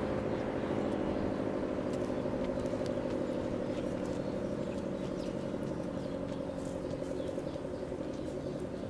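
Federal Signal SD-10 outdoor warning siren winding down, its wail sliding slowly lower in pitch and fading as the rotor coasts to a stop.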